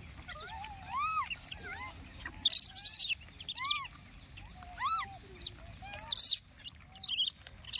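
Monkeys calling: a few arched, whistle-like coos that rise and fall in pitch, mixed with short harsh screeches.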